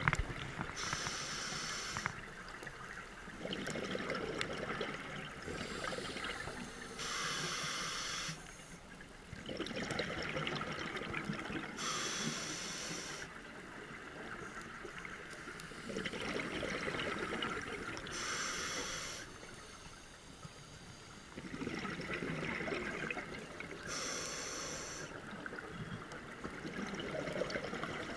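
Scuba diver breathing through a regulator underwater: about five slow breath cycles, each a short hissing inhale followed by a longer burble of exhaled bubbles.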